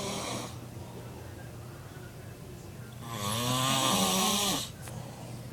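A man snoring loudly: the end of one snore fades out at the start, then one long snore with a wavering pitch comes about three seconds in and lasts about a second and a half.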